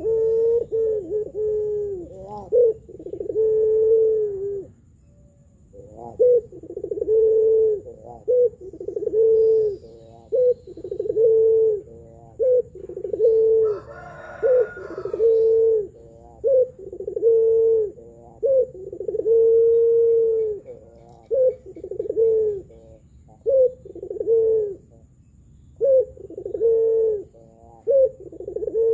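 Puter pelung, a domestic Barbary dove of the long-cooing type, cooing over and over: a steady run of low coos, some short and some drawn out, with a brief break about five seconds in.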